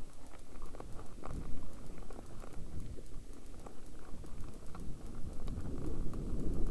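Mountain bike rolling over a loose dirt and gravel singletrack, heard from a helmet-mounted camera: tyre noise with many scattered clicks and knocks, and a low rumble that grows louder near the end.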